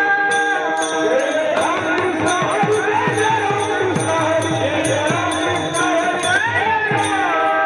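Kirtan devotional music: a hand drum plays repeated bass strokes that drop in pitch, under jingling metal percussion, a steady held drone and a gliding melody line.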